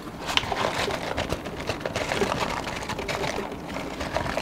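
French fries shaken out of a paper carton onto a wooden cutting board: the paper rustles, with many small scattered taps and clicks as the fries land.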